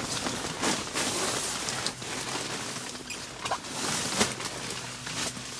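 Deflated vinyl air mattress crinkling and scraping under a small dog's paws as it walks and sniffs across it, in irregular rustles and light scratches.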